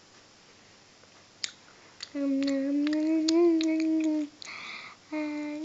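A girl humming two long held notes, the first lasting about two seconds, with a couple of sharp mouth clicks just before it and a short breathy hiss between the notes.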